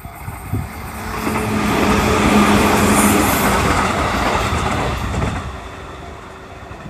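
A train passing over a level crossing: the rumble of its wheels on the rails swells to a peak two to three seconds in, then fades, with a steady hum underneath.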